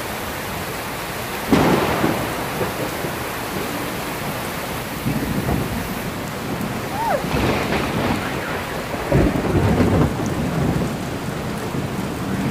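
Heavy rain falling steadily through a thunderstorm. A sudden loud thunderclap comes about a second and a half in, and a second loud spell of thunder follows later on.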